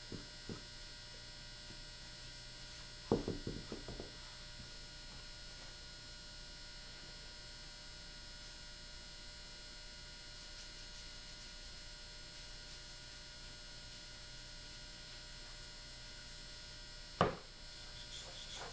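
Steady electrical mains hum with faint high steady whines, broken by a short run of soft knocks and clicks about three seconds in and a single sharper knock near the end, from handling the wooden rifle stock and the stain applicator.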